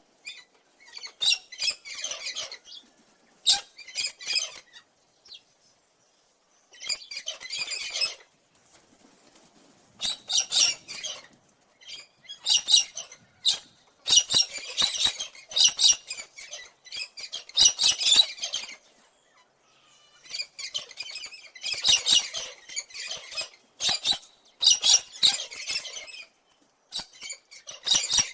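A cockatoo making bird sounds in repeated bouts of one to two seconds each, with short gaps in between.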